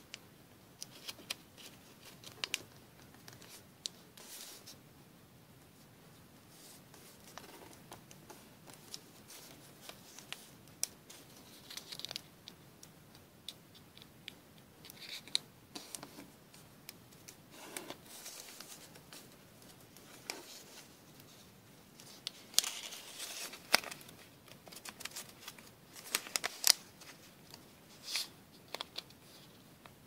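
Origami paper being folded and creased by hand: crisp rustles, crinkles and small clicks as the sheet is handled and pressed flat, coming in scattered bursts that grow busier and louder in the last third.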